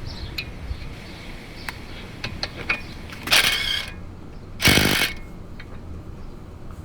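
Metal file scraping across the damaged threads on the end of a CV axle shaft: a few light clicks, then two harsh rasping strokes about a second and a half apart, the second one louder.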